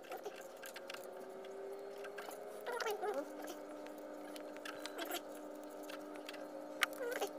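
Fingers handling a braided cord and a thin bamboo stick close to the microphone: faint scratching and rubbing with scattered small clicks. Faint steady tones run underneath.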